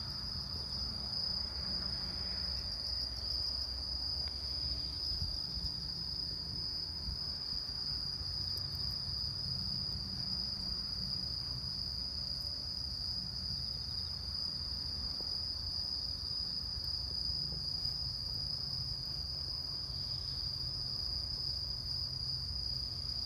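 Insects trilling on one steady high note, pulsing briefly in places, over a low rumble.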